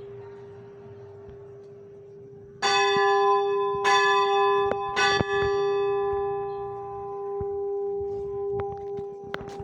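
A metal bell struck three times, about a second apart, each strike ringing on and slowly fading. A low hum from an earlier strike is already sounding before the first one.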